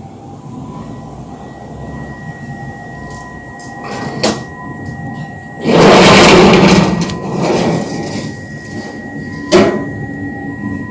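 Sliding storm shutters being run shut along their track: a loud rattling slide of about a second and a half just past the middle, a shorter, weaker slide after it, and sharp knocks before and near the end as the panels strike.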